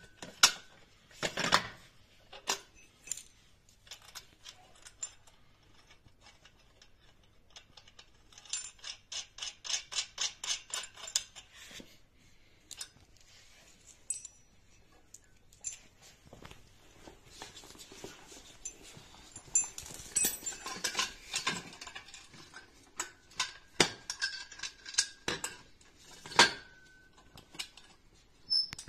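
Metal chain-link fence fittings clinking and rattling against steel pipe as clamps, bolts and mesh are handled, with sharp scattered clicks. Partway through comes a quick even run of clicks, and near the end a metal clink rings briefly.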